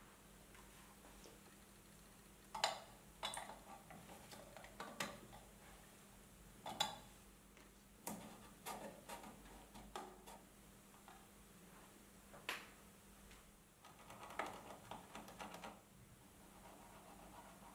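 Faint, scattered taps and clicks of a thin brass sheet-metal box being handled and worked by hand on a table, with a denser run of small clicks about fourteen seconds in.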